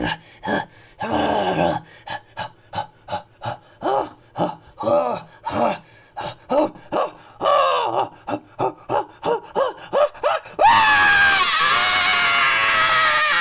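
Caveman-style creature vocal effects: a quick run of short hooting calls, two to three a second, each rising and falling in pitch, then near the end a long loud scream that slowly falls in pitch.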